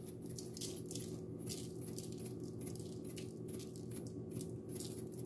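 A glass salt shaker shaken over a parchment-lined baking pan: a faint rattle of salt grains, repeated shakes about two a second, over a steady low hum.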